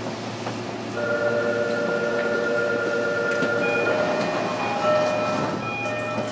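A series of steady electronic tones that change pitch in steps every second or so, like a short melody, over the steady hum of a train standing at a platform.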